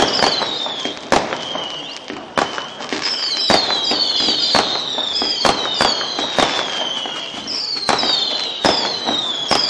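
Fireworks display: sharp bangs of bursting aerial shells about once a second, over a stream of overlapping whistles that fall in pitch.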